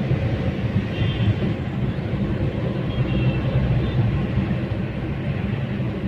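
Car driving along at speed, heard from inside the cabin: a steady low rumble of engine and tyres on the road.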